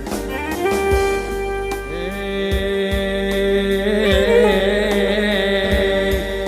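Instrumental passage of an Arabic pop song: long held melodic notes over a low drum beat.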